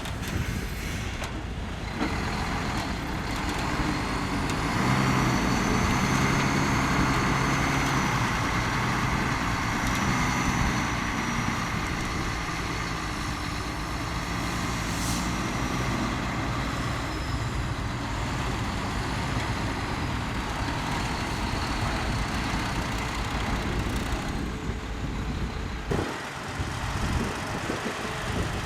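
Diesel engine of heavy earthmoving machinery running steadily, with a noisy mechanical wash over it. It is loudest for several seconds from about four seconds in, then eases to a steady level.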